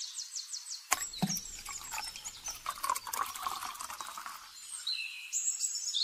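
Water poured from a small steel cup into a tin-can drum onto cement and sand, splashing and trickling for about three and a half seconds after a click about a second in.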